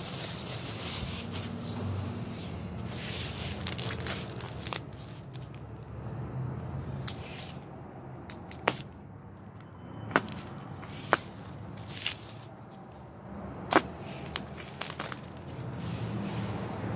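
Packaging being handled and unwrapped, rustling and crinkling, with a handful of sharp clicks or snaps in the second half.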